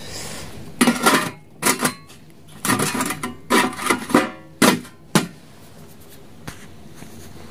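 Sheet-metal lid of a tin-can gel-fuel burner clattering against the can as it is handled and put back on: a string of metallic clanks with short ringing, between about one and five seconds in.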